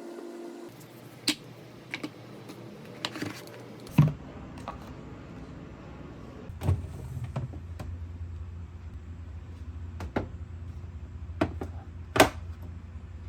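Scattered knocks and clicks of groceries and containers being set into refrigerator shelves and door bins, about eight separate hits, with a steady low hum from about four seconds in.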